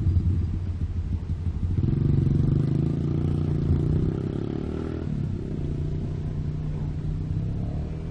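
Komatsu hydraulic excavator's diesel engine working under load as the machine swings and digs, with a steady pitched engine hum; the engine works harder and louder from about two seconds in, easing off again after about five seconds.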